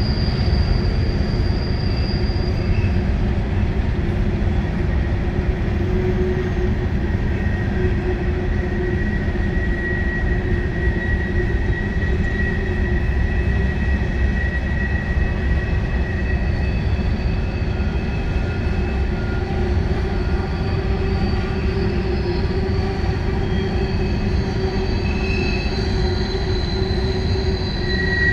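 A freight train of empty Norfolk Southern coal hopper cars rolling steadily past, with a continuous rumble of wheels on rail. Thin, high-pitched squeals come and go over the rumble, one lasting several seconds through the middle and higher ones near the end.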